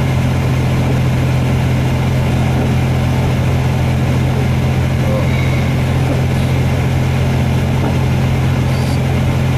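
Steady low drone of a moving car's engine and tyre noise, heard from inside the cabin.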